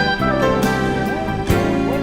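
Background music: an instrumental track with guitar and other melodic instruments.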